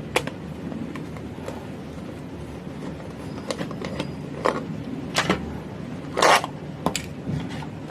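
Screwdriver backing a screw out of a plastic lantern housing: scattered short clicks and scrapes, with a longer scratchy scrape about six seconds in, over a steady low hum.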